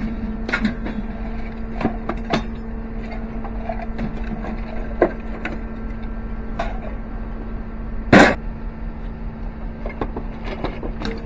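Scrap metal clanking as pieces are pulled from a trailer and thrown onto a scrap heap: irregular sharp knocks every second or two, with one loud, longer crash about eight seconds in. A steady machine hum runs underneath.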